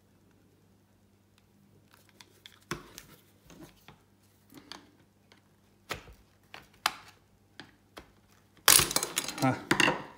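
Plastic housing of a Flexi retractable dog leash being pried open with a screwdriver: scattered clicks and snaps of the plastic, then a louder burst of cracking and rattling about nine seconds in as the housing comes apart.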